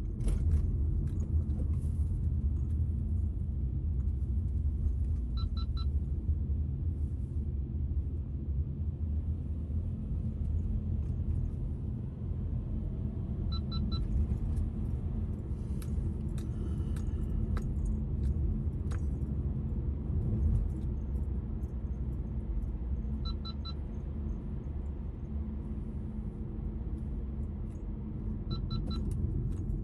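Car road and engine noise heard from inside the moving car: a steady low rumble, with occasional light clicks and rattles and a few faint, short high pips.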